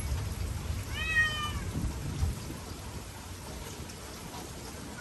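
A cat meows once about a second in, a short call that rises and falls, with another meow starting at the very end. Rain noise runs underneath.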